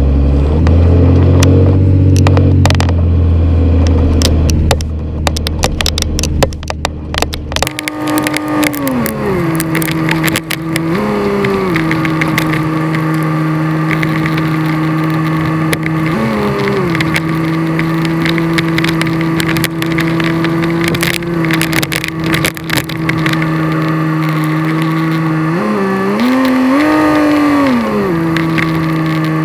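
1997 Dodge Ram's 5.9 Cummins turbo-diesel heard from inside the cab while driving: a heavy low rumble for the first several seconds, then a steady engine drone whose pitch drops, climbs and drops again a few times. Scattered clicks and knocks run through it.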